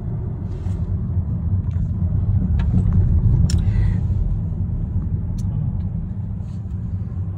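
Steady low road and engine rumble heard inside a Chevrolet car's cabin while it drives along a highway. The rumble swells slightly about halfway through.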